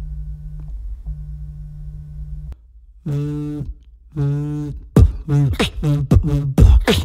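A vibrating cell phone held against the microphone buzzes in long pulses with a brief break, stopping about two and a half seconds in. A beatboxer then imitates it with two buzzing mouth hums, followed by a quick run of sharp vocal beats.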